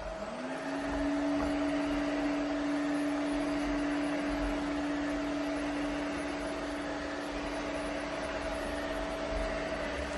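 Eureka robot vacuum starting a cleaning run: its suction motor spins up with a short rising whine in the first half-second, then runs at a steady pitch over a constant rushing noise.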